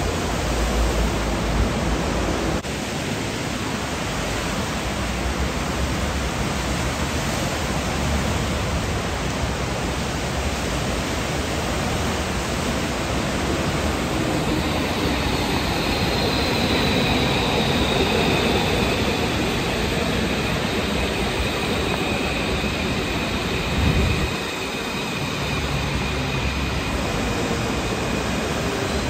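Steady hiss of heavy rain, with a Metro de Santiago AS-02 train running on the wet track. A faint high electric whine from the train comes in about halfway, and a short thump sounds near the end.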